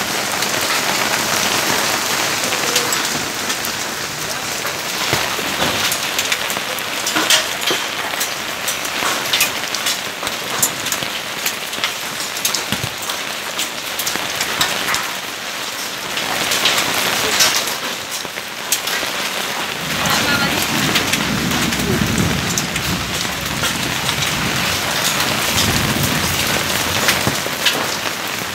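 Heavy rain with hail falling, a dense steady hiss peppered with many sharp clicks of hailstones striking. A low rumble swells for several seconds about two-thirds of the way in.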